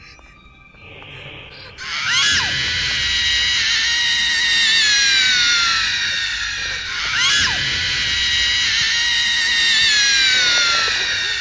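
Two long, loud, high screams, each starting suddenly with a sharp upward leap and then sliding slowly down in pitch over about four to five seconds; the second comes about five seconds after the first. They sit over a low, dark background.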